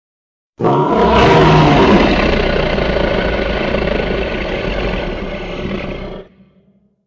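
Dinosaur roar sound effect: one long, loud roar that starts suddenly about half a second in, slowly fades, and cuts off about six seconds in.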